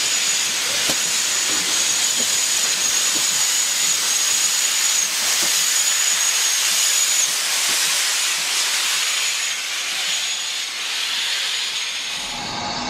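GWR 4144, a 5101-class Large Prairie 2-6-2 tank locomotive, giving off a steady loud hiss of steam as it passes close by, with a thin high tone over the hiss.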